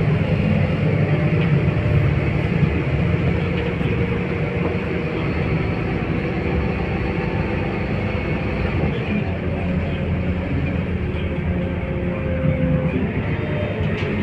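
Scania K230UB city bus heard from inside the passenger cabin while driving: its rear-mounted diesel engine running steadily under way with road noise.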